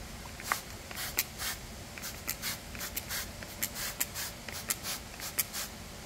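Short dry scratching rubs, irregular, about two or three a second, starting about half a second in and stopping shortly before the end.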